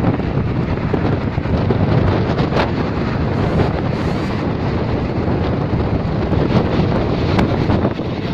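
Wind buffeting the microphone at an open door of a passenger train running at speed, over the steady rumble of the coach on the track, with a few sharp clicks.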